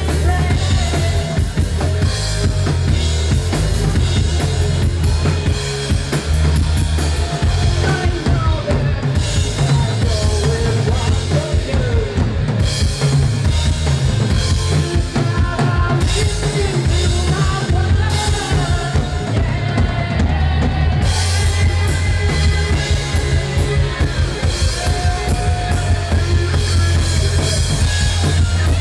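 Live rock band playing loudly: a drum kit driving a steady beat under distorted electric guitars, with a melodic line wavering above.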